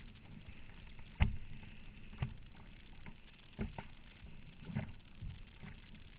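Strong wind rumbling on the microphone, broken by about five irregular hard slaps, the loudest a little over a second in: waves and paddle splashes striking a Perception Scooter sit-on-top kayak in a 35-knot headwind.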